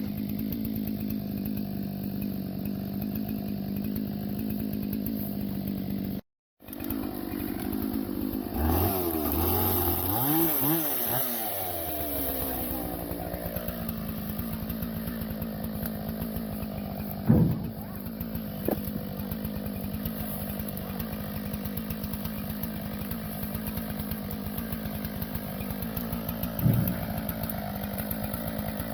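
Husqvarna 576 XP two-stroke chainsaw running steadily. It stops for a moment about six seconds in, revs up and down several times, then settles back to a steady run. Two sharp knocks come later.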